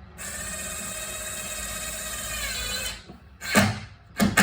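Drill/driver driving a screw into a door's strike plate, its motor whining steadily for about three seconds. Two loud knocks follow near the end.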